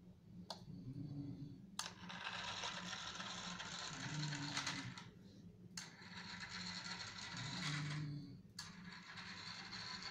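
Small DC gear motor of a homemade model train whirring as it drives across a tiled floor, in stretches of about three seconds separated by sharp clicks.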